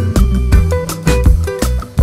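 Background music with a steady beat: bass, drums and plucked instrument notes.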